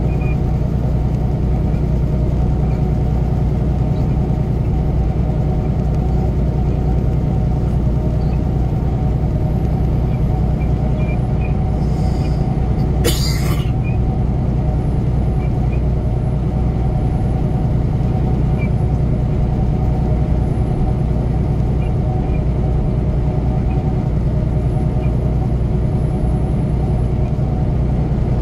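Semi truck at highway cruising speed heard from inside the cab: a steady drone of the diesel engine and road noise. A brief hiss cuts in about halfway through.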